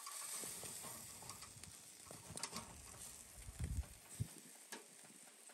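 Spatchcocked chicken sizzling and crackling on a wire rack over charcoal; the hiss is strongest at first and fades, with scattered small crackles and a few low thumps near the middle.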